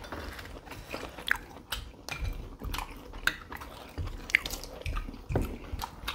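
People eating at a table: chewing and crunching, with scattered short clicks and taps of cutlery on plates.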